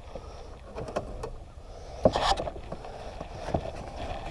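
Small fishing boat on the water: a steady low rumble with scattered light knocks and clicks, and one louder brief rush about two seconds in.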